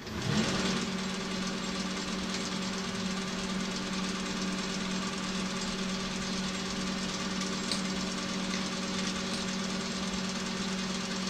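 Small metal lathe starting up and running steadily, its motor and gearing giving a constant hum with a pitched whine while the chuck spins.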